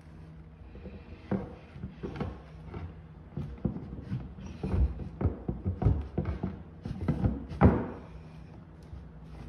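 Irregular knocks and thumps as a boat's centerboard is handled and worked up into its slot in the keel from below, with rustling of a quilted moving blanket. The strikes come thick from about four seconds in, the loudest one near the end.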